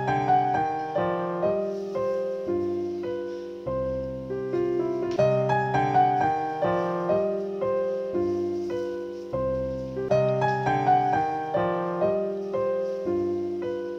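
Background piano music: a melody of held notes over a bass line, repeating its phrase every few seconds.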